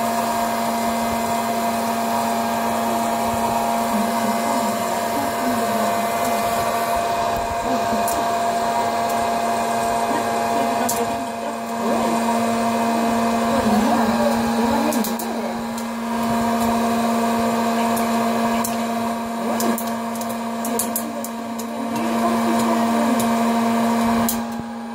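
Hot-air popcorn popper running: its fan motor blows with a steady hum and whine. A few sharp clicks come in the second half.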